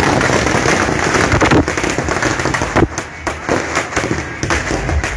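Firecrackers going off in quick succession: a dense crackle for the first few seconds, then more scattered sharp bangs.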